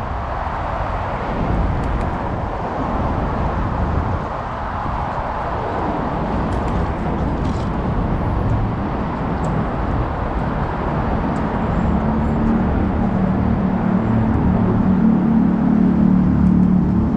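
Steady city road traffic noise with a low rumble. From about twelve seconds in, a vehicle engine's low hum rises and grows louder.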